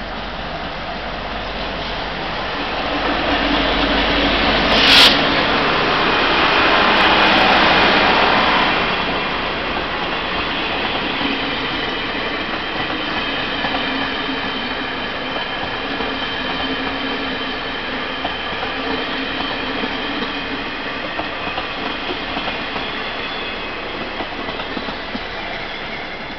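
Taiwan Railway train running through the station. The rush of wheels and carriages grows to its loudest over a few seconds, with a sharp bang about five seconds in, then settles to a steady rolling rumble with faint wheel squeal that slowly fades.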